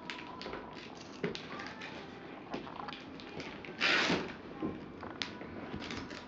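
Rustling and crinkling of gift packaging with small knocks and clicks as a toddler rummages in a Christmas stocking and gift bag, one louder crinkle about four seconds in.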